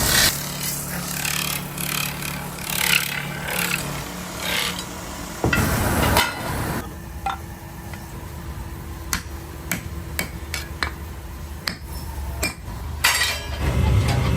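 Metalworking in a workshop: irregular sharp knocks and clinks of metal being struck, over a steady low machine hum for the first few seconds. A louder rush of noise comes about six seconds in.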